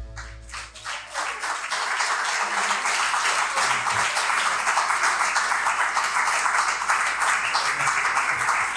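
Audience applauding, building up over the first second or so as the last low notes of the marimba ring away, then clapping steadily.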